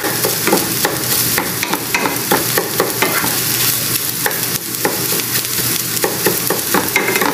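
Egg sizzling in hot oil in a pan while a wooden spatula scrapes and chops it into scrambled pieces. The sizzle is a steady hiss, broken by frequent short scrapes and taps of the spatula on the pan.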